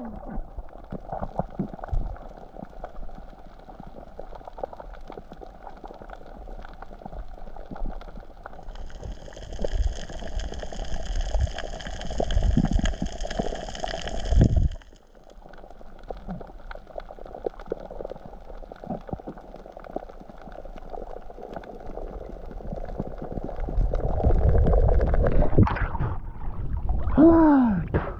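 Water bubbling and gurgling, with scattered knocks and low thumps. Midway a steady high whine runs for about five seconds and then cuts off suddenly, and near the end a short tone falls in pitch.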